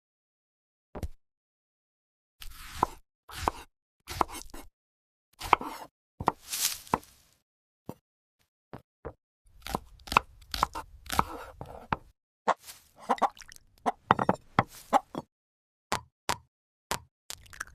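Kitchen food-preparation sounds: short separate knocks, taps and plops with silent gaps between them. After about nine seconds they come faster, as a run of clicks and knocks over a faint low rumble.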